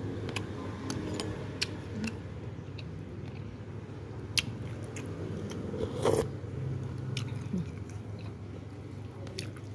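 Scattered light clicks of a metal spoon and chopsticks against a ceramic bowl of noodle soup, the sharpest about four seconds in, with a brief louder noise about six seconds in, over a steady low background hum.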